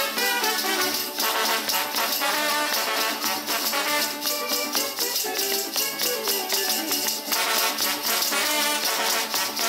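A brass band playing a dance tune, with the dancers' leg bells jingling in time with it.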